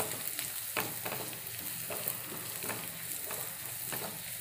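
Shallots, garlic and crushed red chilli sizzling in coconut oil in a nonstick frying pan, stirred with a wooden spatula that scrapes and knocks against the pan over and over, every half second or so.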